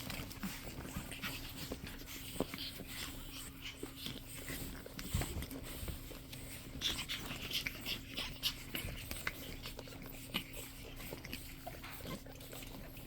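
Pug puppy scrabbling at a pile of toys, with scattered small clicks and rustles.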